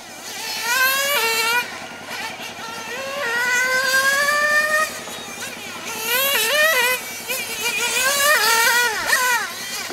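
O.S. 12TG nitro engine in a 1/10 RC touring car running at high revs with a high-pitched whine. The pitch climbs as it accelerates and falls off sharply when the throttle is cut, several times over, with the hardest drop near the end.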